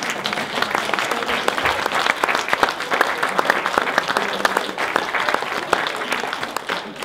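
Audience applauding: dense hand clapping that thins out near the end.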